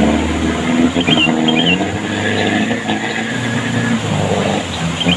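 Loaded truck's engine revving hard as it drives through a fast-flowing river, over the rush of water.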